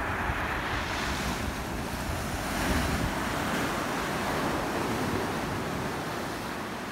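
Small sea waves surging over a rocky shore, the white water washing and hissing through the gaps between granite boulders, swelling loudest a little under three seconds in. Wind rumbles on the microphone underneath.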